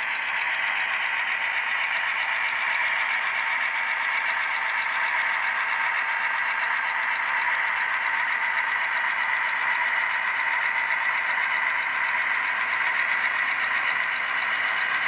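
HO scale model train running slowly along the layout track: a steady mechanical running hum with a fast, even clicking, and a brief high squeak about four and a half seconds in.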